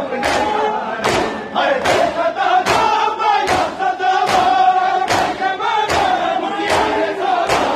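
A crowd of men chanting a noha (Shia lament) in unison, with matam: many hands striking bare chests together a little more often than once a second, in time with the chant.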